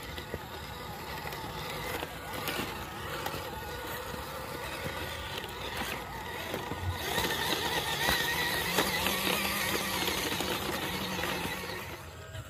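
Small RC crawler driving over rough ground: its stock 180-size brushed motor and gearbox whining, with scattered clicks and rattles. It gets louder from about seven seconds in, then eases off near the end.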